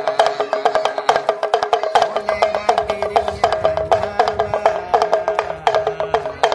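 Damru (a small hand-twisted pellet drum) rattled in a fast, steady run of sharp, ringing taps, the beat for the performing monkey.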